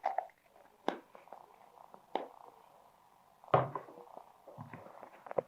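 A few scattered light knocks and taps of plastic Play-Doh tools and dough being handled on a tabletop; the loudest comes about three and a half seconds in.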